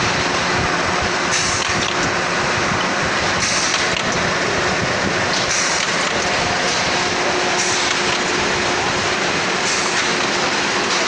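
Snack-food processing machine running steadily, with a short high hiss repeating about every two seconds as it cycles.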